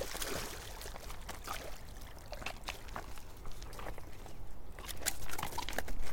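Water splashing with irregular clicks and knocks as a hooked gar is reeled in and landed.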